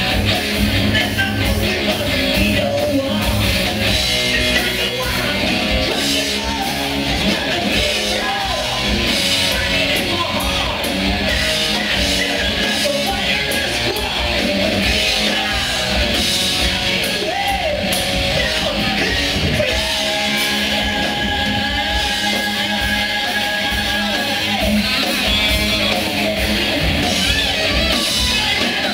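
A rock band playing live at full volume: electric guitars, drums and bass under a singer's voice.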